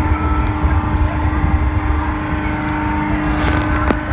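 Motorboat underway at cruising speed: its engine running steadily with a low rumble and a constant hum, with wind and water noise over it. A brief rush of noise comes about three seconds in.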